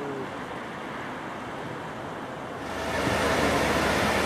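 Class 55 Deltic diesel locomotive with its twin Napier Deltic engines idling, a steady low hum under a rushing noise, which gets suddenly louder about two and a half seconds in.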